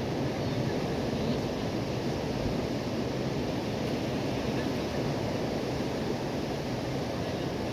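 Sea surf washing steadily against the shore, an even rushing noise with no distinct breaks.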